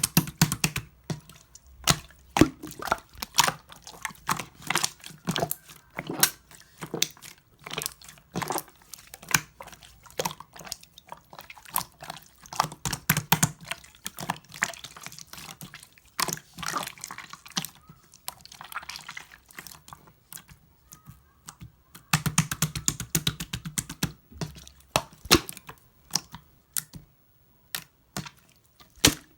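Clear slime worked by hand, pressed and poked: an uneven run of wet clicks, squelches and small air-bubble pops, with a couple of brief pauses.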